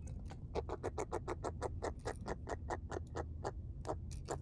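Rapid dry clicking, about eight clicks a second with a couple of brief pauses, from a small live fish held in the hand.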